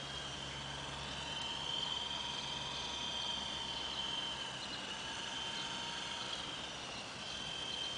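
A radio-controlled MD 530 model helicopter in flight, its electric motor and rotor giving a steady high whine that drifts gently up and down in pitch.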